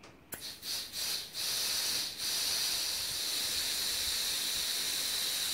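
Shop compressed air at about 90 psi hissing through a makeshift banjo-bolt adapter into a fixed motorcycle brake caliper to blow its pistons out, with air leaking past the improvised seal. A few short puffs come first, then a steady, high hiss from about a second and a half in, dipping briefly near the two-second mark.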